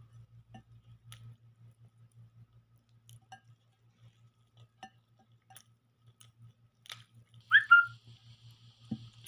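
Quiet eating by hand, with soft chewing and finger clicks in shredded chicken over a steady low hum. About three-quarters of the way through, a short, loud, high whistle-like chirp sounds, followed by a low thump near the end.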